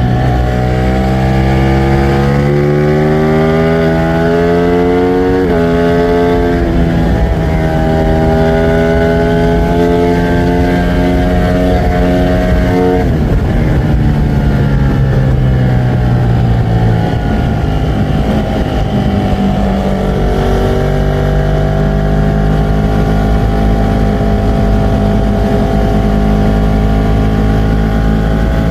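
Ducati Streetfighter V4 S's 1103 cc Desmosedici Stradale V4 engine running under way, its pitch climbing and then dropping sharply at gear changes about 5 and 13 seconds in. It sounds rougher for a few seconds, then settles to a steady drone over the last third.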